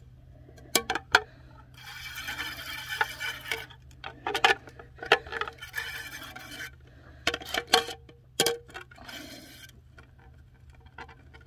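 Hand-pump garden sprayer hissing water onto plastic plates in short spurts, with sharp clicks and clinks as the plates and spray wand are handled.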